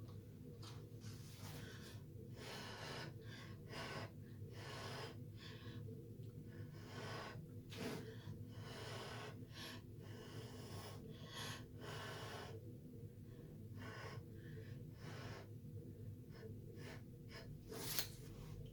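Repeated short, irregular puffs of blown air pushing wet acrylic paint across a canvas, each about half a second long, over a steady low hum.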